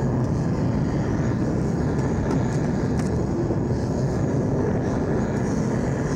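Steady low rumble of vehicle engines, with no distinct passes, revs or impacts standing out.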